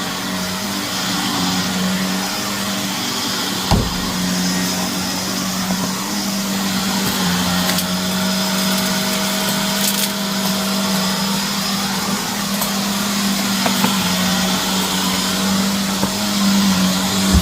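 Shark vacuum cleaner running steadily over a dirty carpet, its motor humming, with one sharp thump about four seconds in and a few small clicks near ten seconds as debris is picked up.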